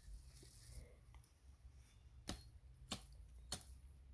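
Faint chopping at tree limbs: three sharp strikes about half a second apart, starting a little after two seconds in.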